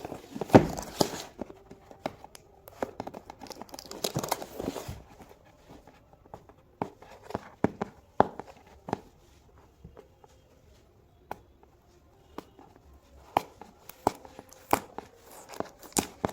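A seal sticker being picked at and peeled off a product box. Irregular small clicks and scratches, with short bursts of rustling and tearing near the start and again about four seconds in.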